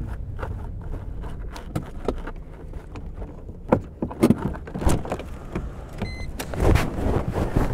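Chrysler Crossfire idling with a steady low rumble, heard from inside the cabin, with scattered clicks and rustles of things being handled. A brief electronic beep sounds about six seconds in, followed by louder clunks and rustling.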